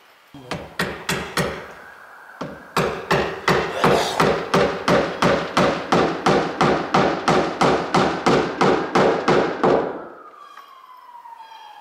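Hammer blows on the sliding glass door's framing: a few separate strikes, then a steady run of about three blows a second for some seven seconds. Near the end a distant siren is heard, falling in pitch.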